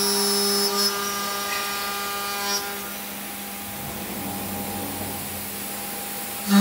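Three-axis aluminium profile CNC machining centre running: a steady hum with a high whine. The whine drops away after about two and a half seconds, leaving a quieter, shifting hum, and the sound rises sharply again right at the end.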